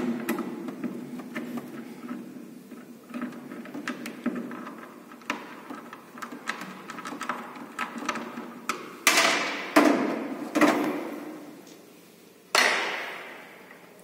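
Small clicks and scrapes of hands loosening hand-tightened nuts on the plastic air-flow cover panel inside a Whirlpool frost-free refrigerator's freezer, then four sharp knocks of hard parts, two of them ringing out for a second or so.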